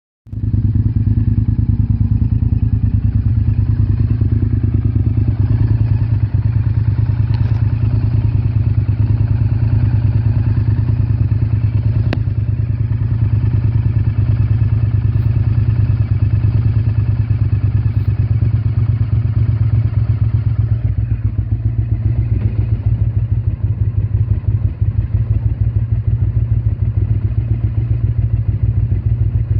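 Honda VTR motorcycle's V-twin engine idling steadily, with a single sharp click about twelve seconds in. The engine is running with an intake vacuum leak.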